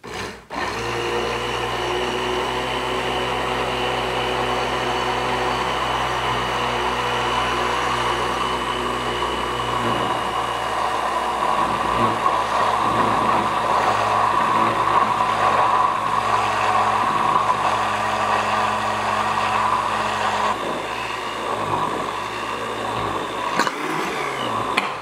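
Handheld immersion blender switching on and running steadily with its blade in a glass mason jar, whipping egg and oil into mayonnaise. Its sound changes about halfway through as the mixture thickens and emulsifies.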